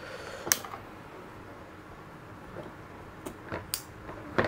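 A few short, sharp clicks and taps from eating and handling durian at a close microphone: one about half a second in, three in quick succession a little after three seconds, and one near the end.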